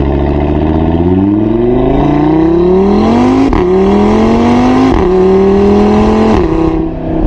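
Car engine accelerating hard through the gears. Its pitch climbs, then drops sharply at each of three upshifts in the second half, and it holds a lower, steady note near the end.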